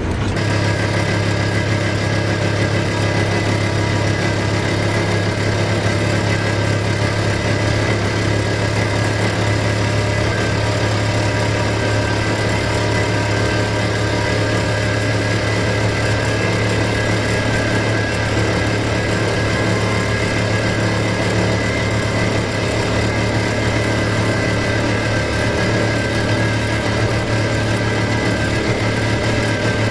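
A vehicle's engine droning steadily while driving, heard from inside the cabin, with a strong low hum and an even level throughout.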